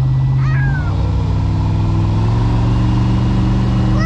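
GM LS V8 inboard boat engine under throttle as the boat pulls away, its note stepping up in pitch twice as the revs climb. A brief, wavering high squeal cuts in about half a second in and again at the end.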